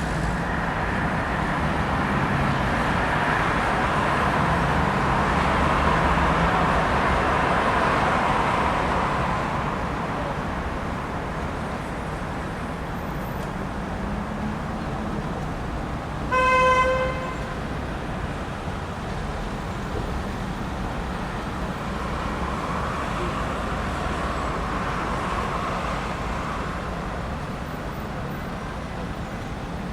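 Busy street traffic: vehicles passing in a steady rumble that swells and fades twice. A car horn toots once, briefly, a little past halfway through, and is the loudest moment.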